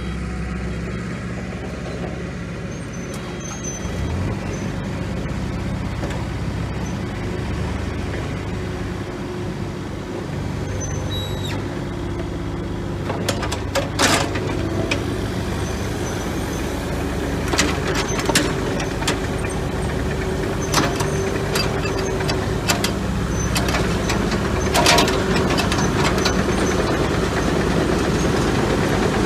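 The 40 hp diesel engine of a Kubota KX040-4 mini excavator running steadily. From about halfway on, several sharp metallic clanks and knocks sound over it.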